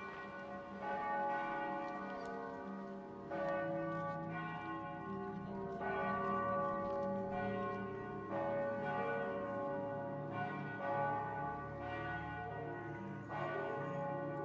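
Bells struck about every two and a half seconds, each strike ringing on over lower, slowly shifting sustained notes.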